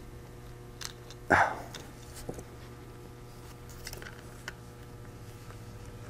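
Faint clicks and taps of a small tool and a tiny metal M.2 mounting bracket against an open laptop's chassis as it is worked into place. About a second in comes one short, louder voice-like sound. A steady low hum runs underneath.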